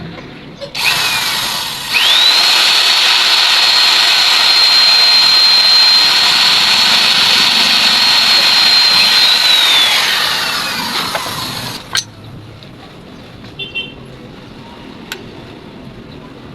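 Angle grinder spinning up to a steady high whine and cutting into metal, then winding down with a falling whine and stopping suddenly about twelve seconds in.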